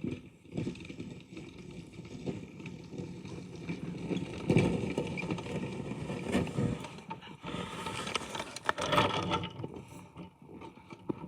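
Snow plow blade scraping and pushing snow in uneven strokes, with scattered knocks and clicks.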